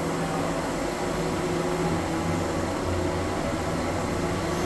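Steady mechanical hum of factory machinery and ventilation, with a constant low drone and an even wash of noise.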